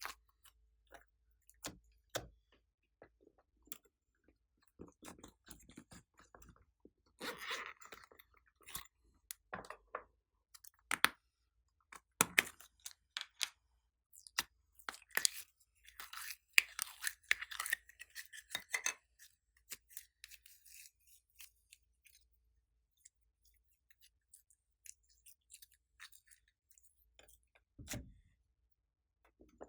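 Glossy slime being squished and stretched by hand, giving irregular sticky clicks and pops, busiest in the middle and thinning out near the end.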